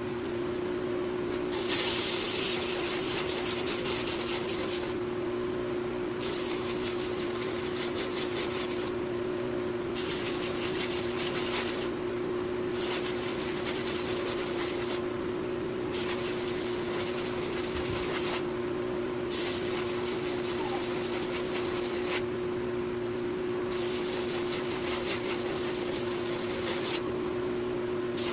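A bench-mounted abrasive power tool runs steadily with a constant hum. A steel workpiece is pressed against it about eight times in passes of two to three seconds, each pass adding a hissing rasp; the first pass is the loudest.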